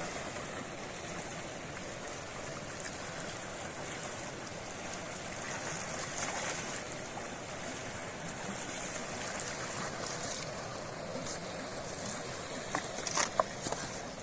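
Steady rush of flowing water, with a few sharp clicks near the end.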